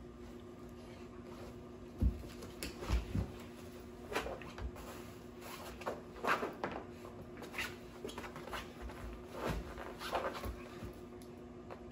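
Two puppies pawing and treading on a fabric tent over a hardwood floor: scattered fabric rustles and paw scuffs, with a few soft thumps in the first few seconds.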